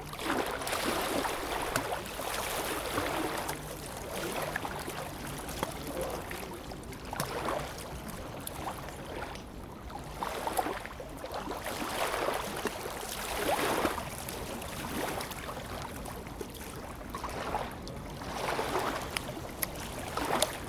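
Small lake waves lapping and splashing against the shore, rising and falling in irregular swells every couple of seconds.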